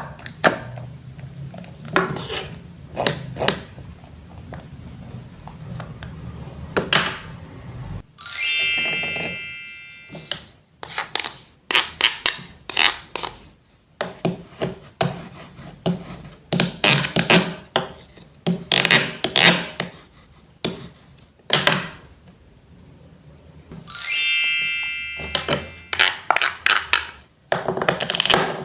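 Wooden play food being cut with a toy knife: a run of short wooden knocks and rasping scrapes. A bright chime rings out and fades twice, about a third of the way in and again near the end.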